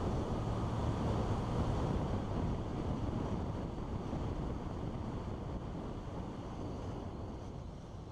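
Wind rushing over a helmet-mounted microphone while riding a 1981 Kawasaki KZ550, with the bike's air-cooled inline-four engine and road noise underneath; the sound fades out toward the end.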